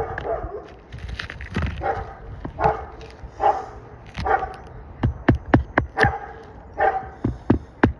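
A dog barking repeatedly, about one bark a second; from about five seconds in, a quick run of hammer blows driving nails into roof shingles.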